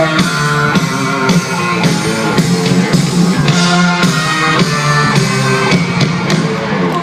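Live band music from a concert: strummed guitar over a steady drum-kit beat.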